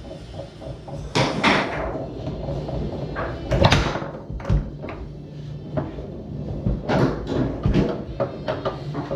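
Foosball game in play on a Tornado table: the ball knocking against the plastic men, rods and walls, with irregular sharp clacks and a few harder shot slams, the loudest about a second in and three and a half seconds in.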